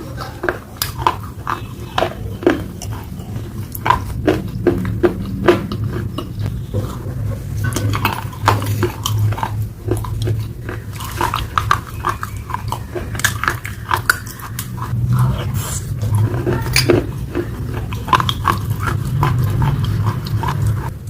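Close-miked mukbang eating of pasta: chewing with many short, sharp wet mouth clicks and smacks over a low steady hum.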